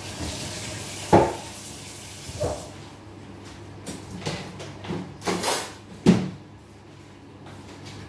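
Kitchen clatter: a tap runs and shuts off a few seconds in, amid a series of separate knocks and clinks of dishes and cupboard doors. The sharpest knocks come about a second in and about six seconds in.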